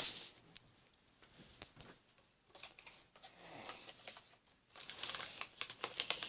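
A sharp click at the start, then faint scattered taps, and a run of small clicks and light rustling near the end: handling noise from a cardboard-and-tape modified Nerf gun.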